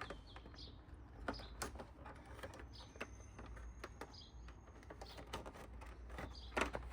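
Faint scattered clicks and knocks of a plastic motorcycle fairing panel being handled and its clips pressed into rubber grommets, with birds chirping again and again in the background.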